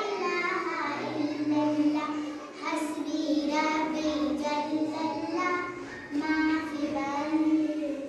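Young schoolgirls singing a Hindi-Urdu poem unaccompanied, in long held notes, with short breaks between phrases about two and a half and six seconds in.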